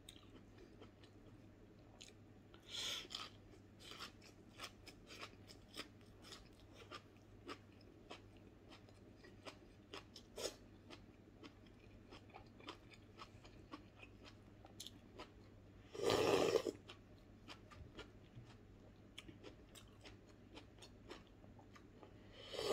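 A person chewing food, with many small crunches and mouth clicks and a few louder bursts. Near the end comes a louder slurp of broth from a coconut-shell bowl.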